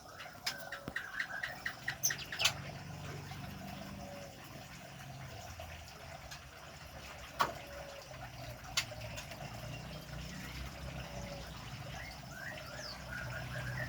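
Female white-rumped shama in breeding condition giving her calls to a male: a quick run of short chirps in the first two seconds, then scattered short notes and a few rising calls near the end. A few sharp clicks come in between.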